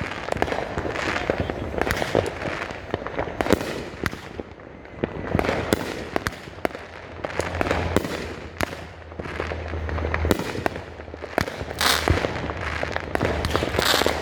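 500-gram multi-shot fireworks cake (Raccoon Fish Tales) firing in sequence: repeated launch thumps and aerial bursts about every second, some with a longer hissing spread after them.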